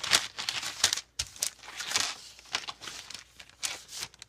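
Packaging crinkling and rustling in quick, irregular bursts as a small package is handled and opened by hand.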